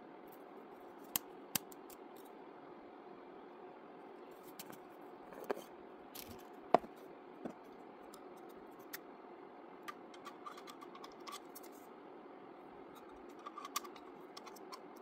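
Scattered plastic clicks and scrapes as a FreeStyle Libre 2 sensor applicator and sensor pack are handled and fitted together, over a steady low hum. The sharpest click comes about halfway through, and a few more clicks near the end as the applicator is pressed onto the sensor pack.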